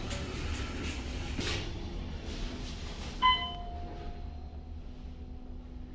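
Elevator door sliding shut over a low rumble of the moving car, then a single bright chime ding a little past halfway that rings on and fades over about two seconds, sounding as the car reaches the P2 parking level.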